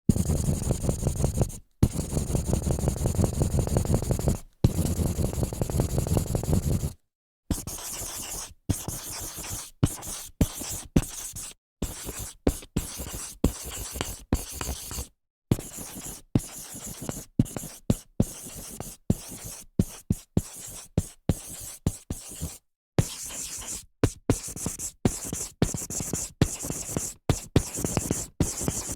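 Whiteboard sounds. First, three runs of fast back-and-forth rubbing across the board lasting about seven seconds in all. Then, from about seven seconds in, a long series of short dry-erase marker strokes, each under a second, with brief pauses between them, like writing.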